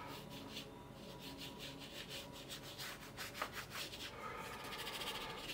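Paintbrush rubbing oil paint onto canvas in a quick series of short, faint, scratchy strokes, several a second, as grass is flicked in.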